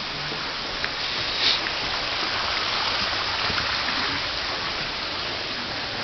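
Steady rush of running water at a garden pond, with a brief louder hiss about one and a half seconds in.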